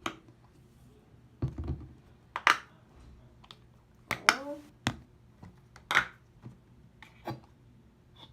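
Several separate clicks and taps of hands handling plastic containers while mixing slime, with a dull thud early on and a short squeaky squirt in the middle.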